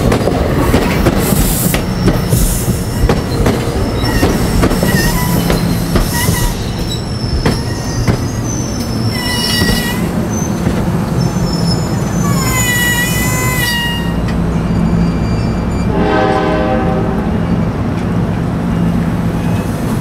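NJ Transit MultiLevel double-deck commuter coaches rolling past close by: steady wheel-on-rail noise with clickety-clack over the rail joints, and wavering wheel squeals around ten and thirteen seconds in. About sixteen seconds in, a brief horn-like pitched tone sounds for about a second.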